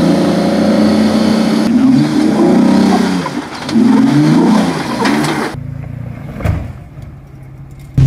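Jeep Wrangler Rubicon engine revving up and down in repeated surges as it crawls up a steep rock ledge. About two-thirds of the way through it switches to a quieter, lower engine rumble.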